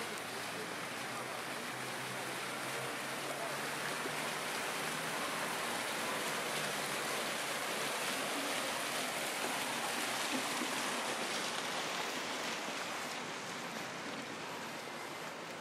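Water from a row of small fountain jets splashing into a shallow pool and channel, a steady hiss that swells a little midway and then eases.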